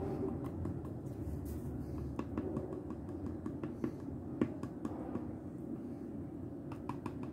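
Small sharp clicks and taps of a plastic fabric-paint bottle being squeezed and handled over a metal jar lid, with a cluster of quick clicks near the end, over a steady low background hum.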